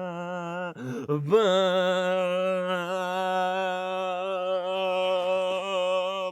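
A single voice chanting a long, low held note with a slight waver. It breaks briefly about a second in, then holds one steady pitch until it cuts off abruptly.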